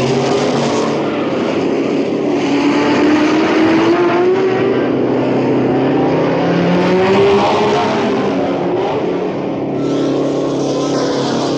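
1962 Formula One racing car engines running hard at speed, their pitch rising and falling with the revs.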